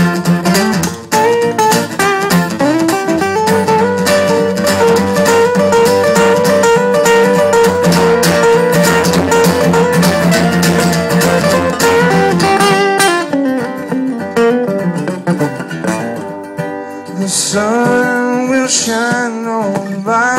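Two acoustic guitars playing an instrumental break, busy strumming and picking that thins out a little past halfway. Near the end a man's singing voice comes in over the guitars.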